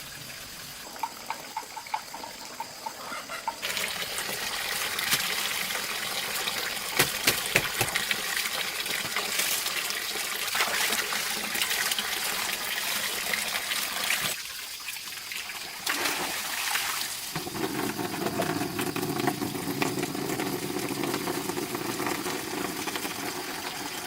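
Water pouring and splashing: a quieter trickle with scattered drips at first, then a steady rush about three and a half seconds in. The flow dips briefly past the middle, and a lower, fuller tone joins it for the last several seconds.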